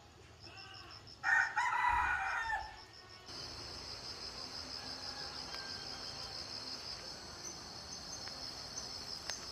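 A rooster crows once, a little over a second in, lasting about a second and a half. Under it and after it, insects chirp in a rapid, high-pitched pulse that swells into a steady trill from about three seconds in.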